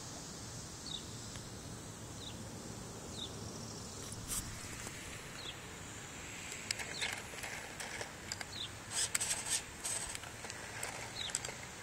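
Outdoor ambience: a steady high insect hum, with short high chirps repeating about once a second. A few sharp clicks and rattles come about four seconds in and in a cluster near the end.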